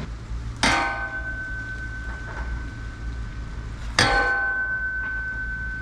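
Two hard strikes on a metal object, about three seconds apart, each leaving a clear metallic ring that lasts around three seconds.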